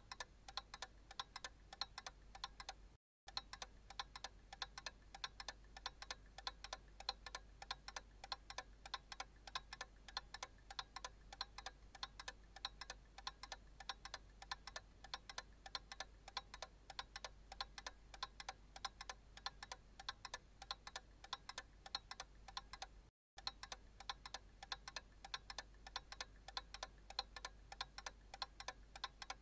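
Analog clock ticking in an even, steady rhythm of sharp ticks, falling silent for a split second twice.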